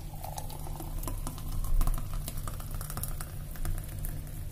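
Thick blended mango milkshake pouring from a grinder jar into a glass mug, splattering into the glass with many small ticks and clicks, loudest a little under two seconds in. A steady low hum sits underneath.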